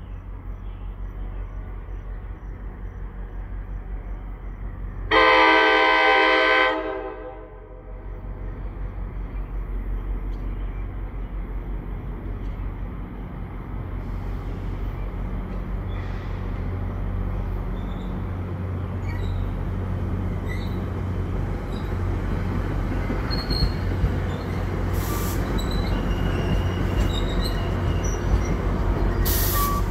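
NJ Transit commuter train with Comet V coaches approaching and running past: one multi-tone horn blast of about a second and a half about five seconds in, then the rumble of the train growing steadily louder. Near the end come high wheel squeals and a few sharp clicks as the cars pass.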